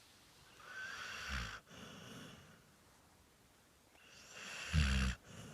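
Snoring: two snoring breaths in, a little over three seconds apart. Each builds for about a second and ends in a loud low rumble, with a quieter breath out after each.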